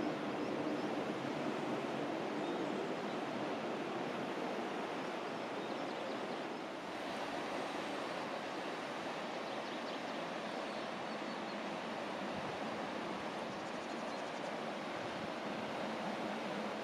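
Steady rushing noise with no distinct events, dipping briefly about seven seconds in.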